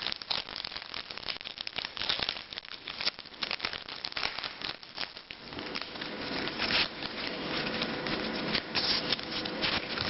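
Foil Pokémon TCG booster pack wrapper being torn open and crinkled by hand: a continuous run of crackles and rustles.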